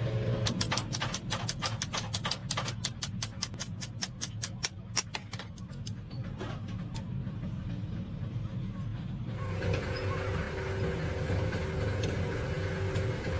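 A low, steady engine rumble with a fast run of sharp clicks over it, about eight a second, for roughly five seconds. Near the end a steadier hum with a couple of held tones comes in.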